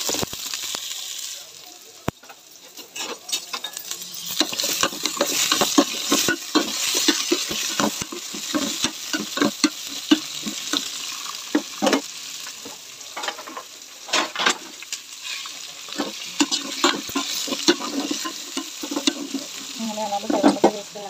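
Chopped vegetables (radish, tomato, onion, carrot, brinjal, green chillies) sizzling in hot oil in an aluminium pot while being stirred with a metal ladle, which clicks and knocks against the pot many times.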